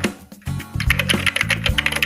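Computer-keyboard typing sound effect: rapid key clicks, with a short lull just after the start, playing over background music with sustained low notes.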